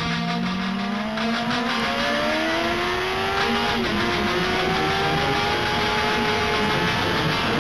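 2004 Yamaha R1's inline-four engine pulling hard on track, its pitch climbing steadily, dipping slightly about four seconds in, then rising more slowly, with wind rush over the bike.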